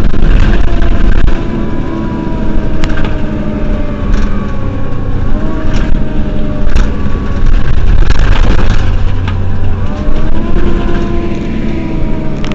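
Mercedes-Benz Citaro city bus's diesel engine idling steadily while the bus stands, heard close at the rear, with some higher whining tones that slide slowly down and up. A few sharp clicks break in, and there is a short noisier stretch about eight seconds in.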